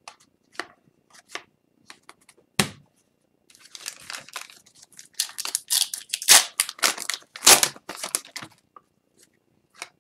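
A few light clicks and taps of trading cards being handled, then an Upper Deck hockey card pack torn open, its wrapper crinkling and crackling for about five seconds in the middle.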